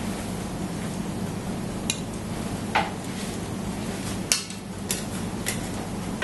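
About five short, sharp clinks and knocks of kitchen utensils against metal pans and a plate as roasted chicken fillet is lifted out and plated. The loudest knock comes a little past the middle, over a steady low hum.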